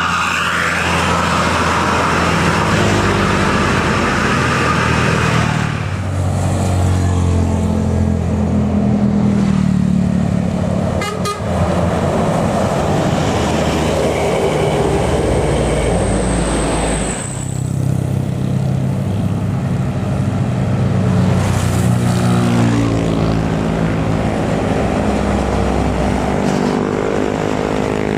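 Diesel tour buses labouring up a hill one after another, their engines running under load, with a telolet horn (the multi-tone musical bus horn) sounding, clearest near the end.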